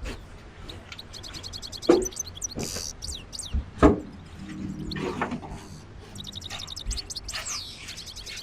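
Small birds chirping in rapid high trills, twice, with two loud sharp knocks about two and four seconds in.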